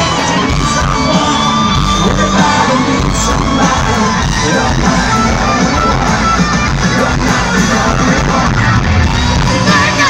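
A live rock band playing a ballad, with a sustained, bending electric guitar lead over piano and drums, recorded from the crowd at loud concert volume. Crowd voices sing and yell along.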